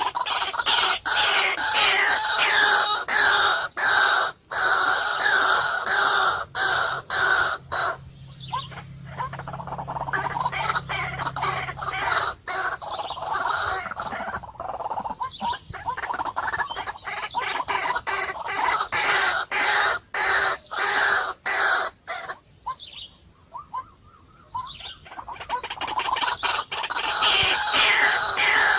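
Birds calling densely, a steady jumble of clucking and chirping notes that thins out briefly twice.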